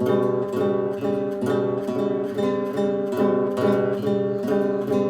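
Acoustic guitar strummed in a steady rhythm, about two strums a second, repeating the same chord pattern.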